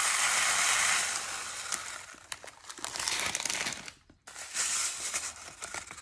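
Small bird seed pouring through a rolled-paper funnel into a bottle. It starts as a steady rushing hiss, which after about two seconds thins into a scattered trickle of ticking grains. After a brief pause near the middle, a second shorter pour follows.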